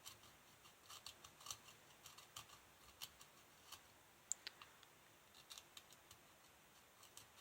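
Faint, irregular scratching of a sharp tool scraping the coating off a copper track on a single-sided circuit board, with one sharper click about four seconds in.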